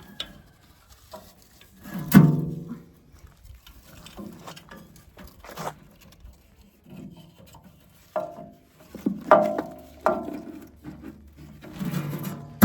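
Hand tools working on a chipper/shredder's metal housing: scattered ratcheting clicks and small ticks, with a few sudden metallic knocks that ring on briefly, the loudest about two seconds in and a cluster near the end.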